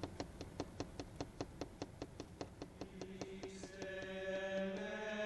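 Quick, even ticking, about five ticks a second, which gives way about three and a half seconds in to a steady held musical note with overtones.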